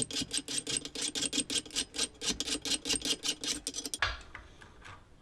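Fast, rhythmic strokes of a file rasping on a metal piece, about seven a second, with the metal ringing faintly under each stroke. The filing stops about four seconds in, leaving a few faint ticks.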